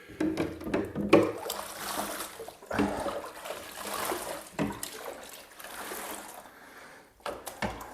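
Water running and trickling as a hen is rinsed, splashing unevenly through her wet feathers, with a few sharp knocks along the way.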